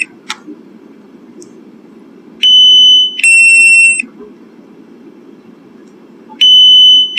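Drone remote controller's loud low-battery alarm, warning that the drone's battery is low and it must land. Two steady beeps, a higher tone then a slightly lower one, each just under a second, sound as a pair about two and a half seconds in and again near the end, repeating about every four seconds.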